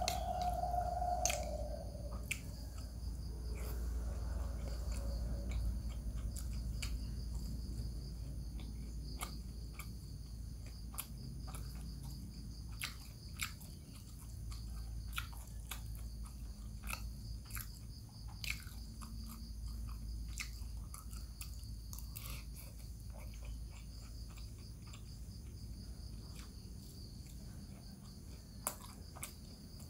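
Close, wet chewing and biting sounds of a person eating rice with bamboo-shoot vegetable, with scattered short clicks of a metal spoon against the bowl and a steady low hum underneath. A steady mid-pitched tone fades out about two seconds in.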